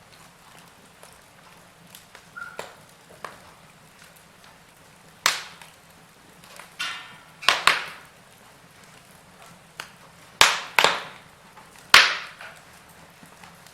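Wood fire crackling: irregular sharp pops a second or two apart, the loudest in the second half, over a faint steady hiss, with a short buzzy hiss about seven seconds in.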